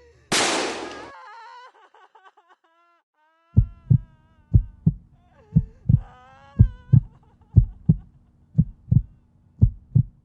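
A recorded heartbeat: low double thumps, lub-dub, repeating about once a second from about three and a half seconds in. Before it, a short burst of noise just after the start, then a wavering pitched tone with overtones that bends up and down and fades out around seven seconds in.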